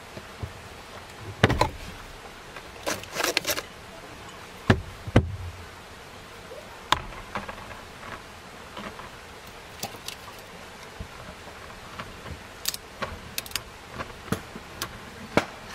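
Knocks and clicks of things being handled and set down on a portable fridge's plastic lid, among them a glass juice bottle. Near the end comes a run of small sharp clicks as the bottle's screw cap is twisted open. A steady hiss sits underneath.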